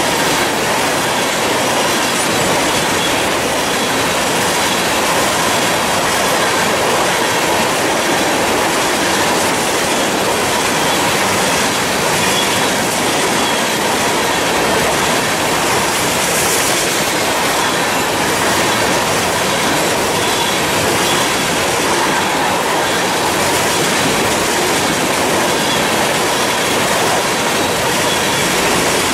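Norfolk Southern freight train of covered hopper cars rolling past close by: a loud, steady noise of steel wheels running on the rails.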